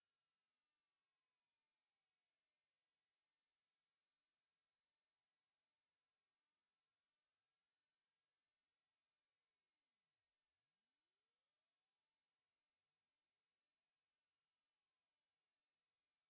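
A pure sine test tone gliding steadily upward in pitch at an even loudness, from a high whistle to a very high, thin tone near the upper limit of hearing. It is the top end of a hearing-test sweep that climbs by a constant fraction of its pitch through the full range of human hearing.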